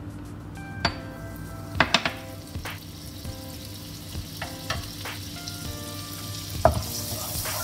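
Butter melting and sizzling gently in hot oil in a non-stick wok, with several light taps of a spoon and wooden spatula against the pan. The sizzle grows brighter near the end as the butter heats up.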